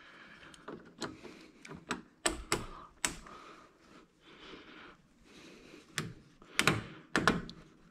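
Irregular light clicks and clanks of metal hand tools and spring hose clamps being handled, with a quick run of louder knocks near the end.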